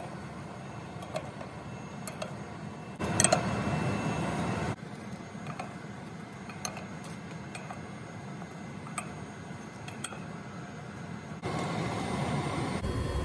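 Scattered light metallic clicks and clinks of a valve wrench on a rusty valve handwheel as the valve is turned shut, over a low steady background noise that grows louder for a couple of seconds about three seconds in and again near the end.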